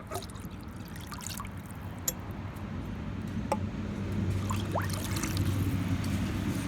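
Whey trickling as it is poured into the chickens' waterer, with scattered small clicks and a low rumble building through the second half.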